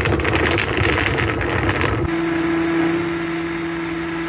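Countertop blender running on a smoothie of frozen fruit, orange juice and protein powder. It makes a loud, rough churning for about two seconds, then abruptly settles into a smooth, steady motor hum.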